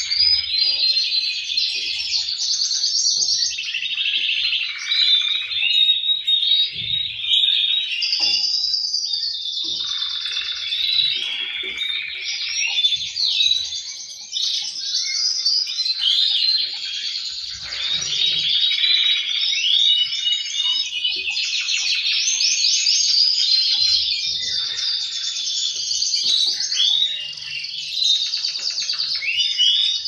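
Male canaries singing over one another in long, unbroken runs of rapid trills and chirps, with a brief lull about fourteen seconds in.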